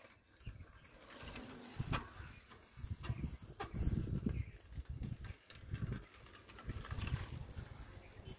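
Bicycle being ridden, with uneven low rumbling and a few sharp clicks or rattles.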